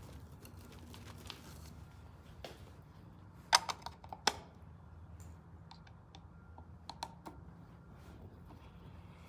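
Scattered sharp clicks and taps from handling a plastic outlet cover plate. The two loudest come close together about three and a half to four and a half seconds in, with a few lighter clicks around seven seconds.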